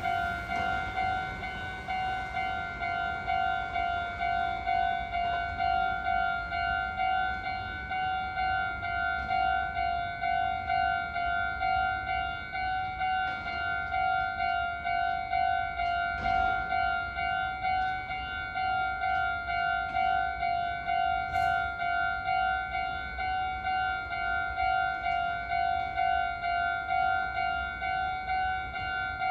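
Japanese railway level-crossing alarm ringing, an electronic bell repeating a steady ding a little under twice a second: the warning that a train is approaching and the crossing is closed.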